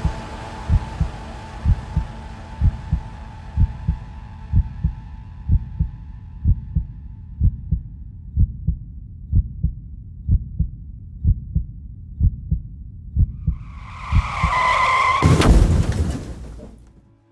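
A heartbeat sound effect, a low double thump roughly once a second, with music fading out under it over the first few seconds. Near the end a tyre screech slides in and is cut off by a loud crash that quickly dies away.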